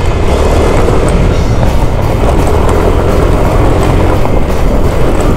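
Yamaha Mio Aerox scooter riding over a rough dirt track: the engine running under way, with the jolting rattle of the bike on the gravel and steady wind noise on the microphone.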